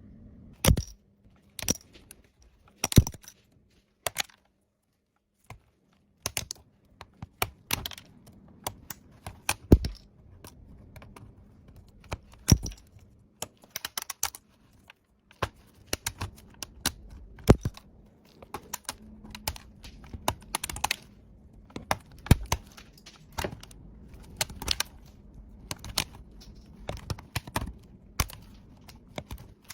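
Laptop keyboard keys clicking and clacking in irregular sharp clicks, with a short lull about four to six seconds in.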